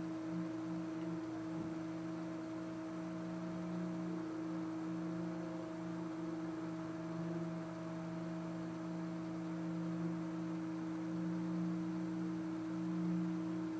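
Steady background hum of a few fixed tones over a light hiss, unchanging throughout: the constant drone of a machine or appliance running in the workshop.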